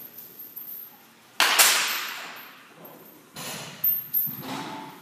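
A baseball bat hits a pitched ball in a batting cage: one sharp, loud hit about a second and a half in that rings and fades over a second or more, followed a couple of seconds later by several lighter knocks and clatters.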